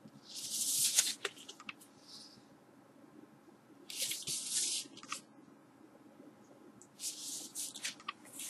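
Cardboard LP record jacket being handled: three short bouts of rustling and scraping, with a few sharp clicks, as the sleeve is turned over and then put down.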